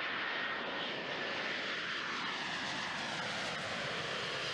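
Steady jet roar of an Antonov An-124 Ruslan's four turbofan engines as the transport passes low on landing approach, with an engine whine that falls in pitch partway through.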